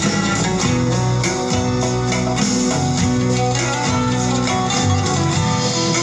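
Instrumental guitar-led music, with no singing, played back loud through passive PA speaker cabinets fitted with Magnum drivers.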